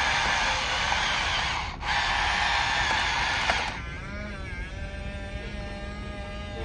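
Electric gear motors of an RC toy construction machine whining under load, cutting out briefly once. About three and a half seconds in, the loud whine gives way to a quieter, higher-pitched motor whine that wavers in pitch before settling.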